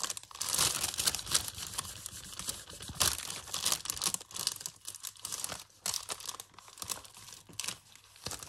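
Thin sheet of paper crinkling and crackling as it is peeled off a paint-covered gel printing plate.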